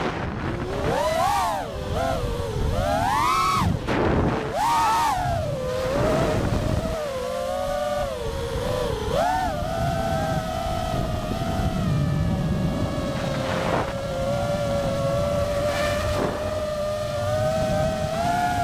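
A 6S FPV quadcopter's brushless motors and propellers whining, heard close up from the camera on the drone. The pitch swings sharply up and down with quick throttle punches and flips, then holds a steadier whine over low wind rush from about halfway through.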